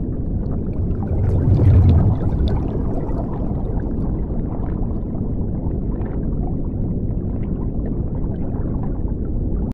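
Underwater bubbling and rumbling sound effect for an intro animation, swelling louder about a second and a half in, with scattered bubble pops, then cutting off suddenly.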